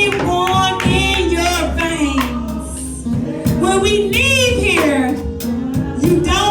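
Gospel worship music with voices singing over a steady bass and sustained keyboard or organ tones.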